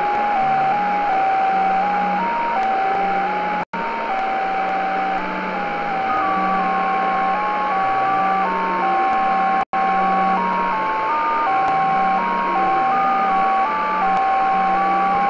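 JT65 digital-mode signals on a Tecsun PL-600 shortwave radio in SSB at 7077 kHz: a steady beeping tone that hops between pitches roughly every third of a second over band hiss. A second JT65 signal joins at a slightly higher pitch about six seconds in, and the audio cuts out for an instant twice.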